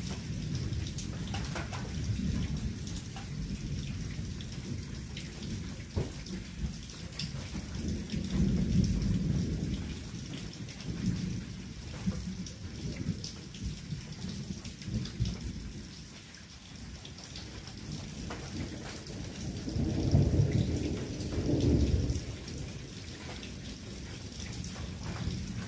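Heavy rain falling steadily in a thunderstorm, with many close drops ticking. Low rolls of thunder come about eight seconds in and again about twenty seconds in, the second the louder.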